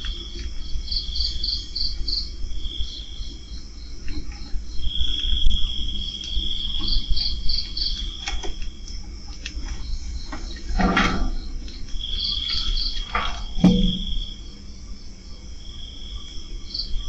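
Night insects, crickets, chirping in repeated pulsed bursts with an on-and-off trill over a low steady hum. Two sharp knocks stand out in the middle.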